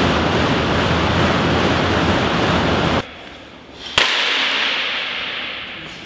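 Rogue air bikes pedalled hard, their fan wheels making a loud, steady rush of air that cuts off suddenly about three seconds in. About a second later comes a short swish and a sharp crack, followed by a fading hiss.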